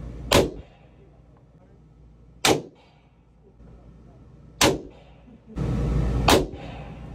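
Four pistol shots in an indoor range, roughly two seconds apart, each a sharp crack with a short echo. A steady low rumble sets in shortly before the last shot.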